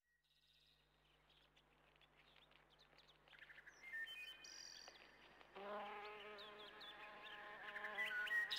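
A flying insect buzzing steadily, starting about halfway through, over short high bird chirps.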